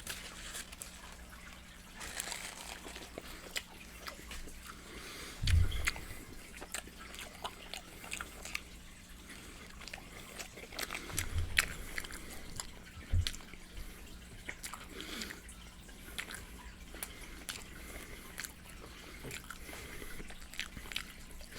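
Close-miked chewing of fried chicken, with many wet mouth smacks and clicks. A few dull low thumps come through, the loudest about five seconds in, with two more around eleven and thirteen seconds.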